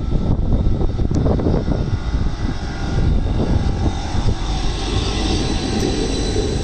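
Edinburgh Trams CAF Urbos 3 tram passing close by: a steady rumble of the wheels on the rails, with a faint electric whine from the drive coming in about two seconds in.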